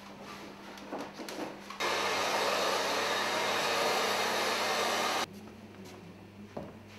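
Handheld hair dryer blowing over a freshly printed silkscreen to dry the ink. It comes on suddenly about two seconds in, runs steadily for about three and a half seconds, then cuts off suddenly. A few light handling knocks come before and after it, over a faint steady hum.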